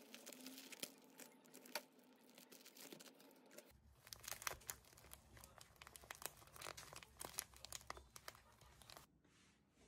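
Clear plastic packaging bag crinkling and crackling faintly in the hands as it is folded and handled, in quick irregular crackles.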